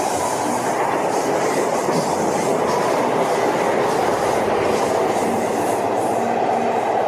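High Speed Train (InterCity 125) passing at speed: a steady, dense rush of diesel power car and wheels running on the rails.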